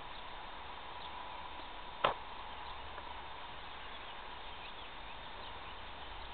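Steady outdoor hiss with a faint steady high tone and a few faint chirps, broken by one sharp knock about two seconds in.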